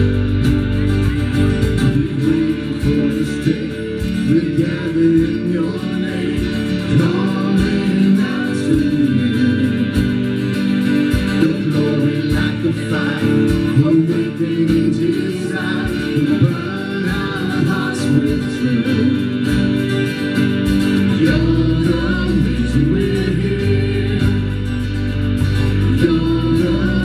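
Live contemporary worship band playing: electric and acoustic guitars with drums, and several singers on microphones singing together. The bass and drums fill out more heavily about three-quarters of the way through.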